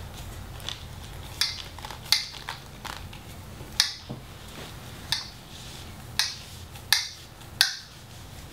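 Handling noise of PVC pipe and fittings: about ten light, sharp plastic clicks and knocks at irregular intervals as a freshly glued 1.5-inch PVC pipe and its cap are turned in the hands and wiped with a rag.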